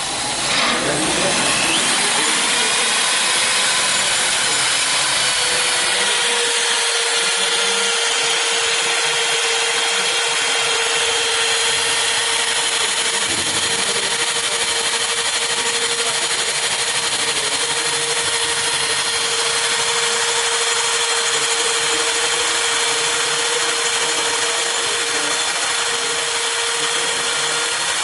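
Milwaukee 0299-20 Magnum 1/2-inch corded drill running continuously. Its motor whine rises as it spins up in the first couple of seconds, then holds one steady pitch.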